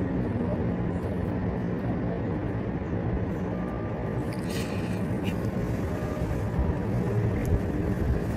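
Steady low background rumble with a few faint clicks about halfway through.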